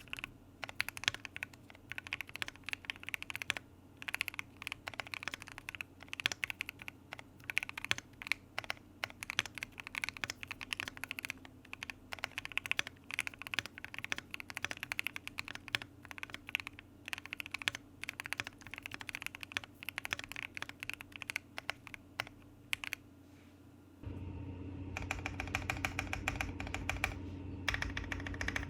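Typing on a Keychron Q1 mechanical keyboard with lubed Gateron Black Ink V2 linear switches: a steady run of irregular keystroke clacks. About 24 seconds in, a low hum rises underneath and the keystrokes come faster and denser.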